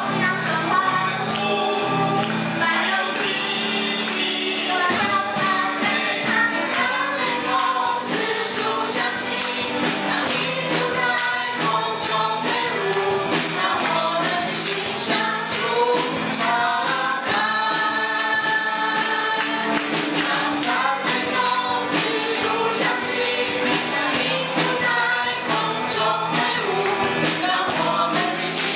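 Live worship band performing a Mandarin praise song: several singers on microphones over acoustic guitar, keyboard and drum kit.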